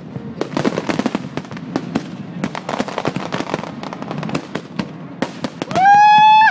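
Fireworks display: a rapid run of sharp cracks and pops. Near the end a loud, shrill whistle rises and holds its pitch.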